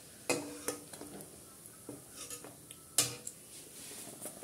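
Metal slotted spatula clinking against a steel kadai and steel plate while fried fritters are lifted out: a few sharp clinks, each with a brief metallic ring, the loudest about three seconds in.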